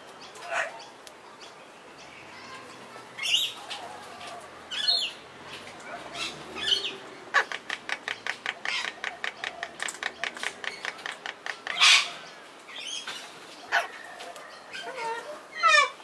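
Pet parrots giving short, harsh calls several times, the loudest near the end falling in pitch, with runs of quick clicking at about six a second in between.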